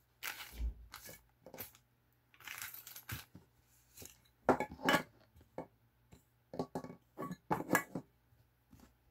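Hard white plastic parts of a Tamiya styrofoam cutter kit being picked up and set down on a table: a series of short, irregular clacks and knocks.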